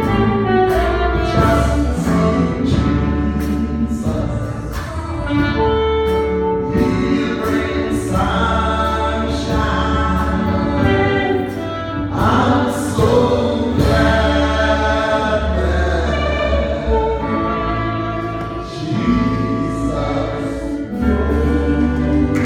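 Live gospel song: a woman sings a solo through a microphone and the church PA, with keyboard and drum kit accompanying her, the drums keeping a steady beat.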